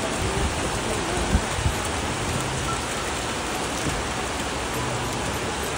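Heavy downpour: steady rain pouring down onto a flooded street, with a couple of brief low thumps about a second and a half in.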